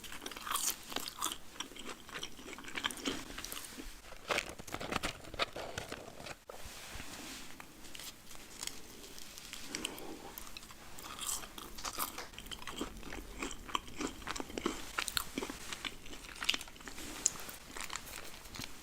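Close-miked eating-ASMR mouth sounds from a burger-and-fries meal: crunchy bites and chewing, dense with irregular crisp crackles.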